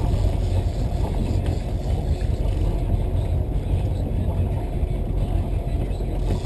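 Charter fishing boat's engine running steadily at trolling speed: a low, even rumble.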